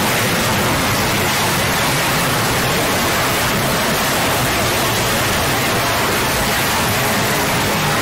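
Loud, steady static-like noise, an even harsh hiss with no breaks or hits, a distorted noise sound effect.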